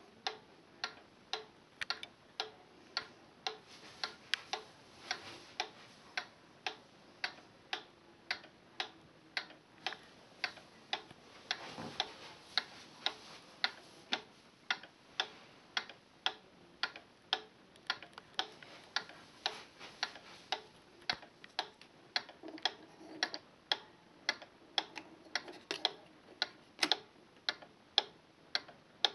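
Antique c1900 stag's head cuckoo clock ticking steadily, its pendulum escapement giving an even tick-tock of about two ticks a second.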